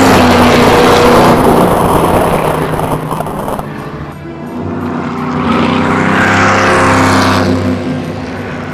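Race car engine sound effect over a music track; it dips around the middle and swells again before fading near the end.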